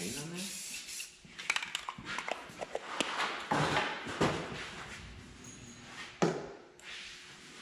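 Aerosol spray can hissing, stopping about a second in, then scattered clicks, knocks and clatter of parts and tools being handled.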